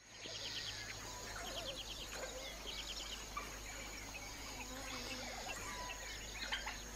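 Bush ambience: a steady high-pitched insect drone with scattered bird chirps and short trills, over a low steady rumble.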